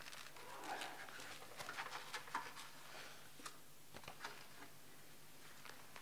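Faint scattered clicks and light rustles over quiet room tone, mostly in the first three seconds: a reader handling sheets of paper and shifting about at a music-stand lectern.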